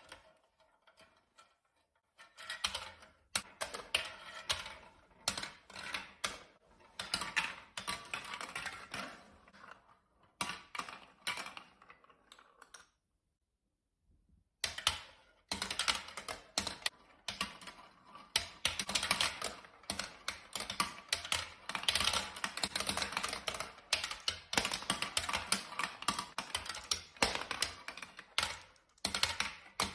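Hard plastic marble-run parts and marbles clattering: dense, rapid, irregular clicking and rattling. It breaks off for about a second and a half around the middle.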